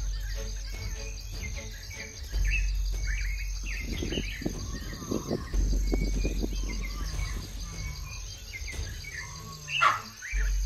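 Birds chirping and calling over a low droning music bed of long held bass notes that come and go, with one short loud cry near the end.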